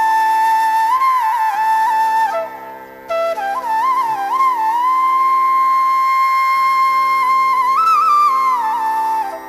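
Indian classical music: a flute plays a slow melody of long held notes with ornamented glides over a steady drone. The melody pauses briefly about two and a half seconds in and again at the very end.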